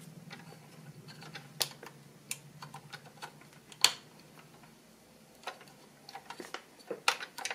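Scattered small clicks and taps of hard plastic as fingers handle the mounted gun and ammo belt on a 1:18 scale toy Humvee's turret. The sharpest click comes about four seconds in, and a quick run of clicks near the end.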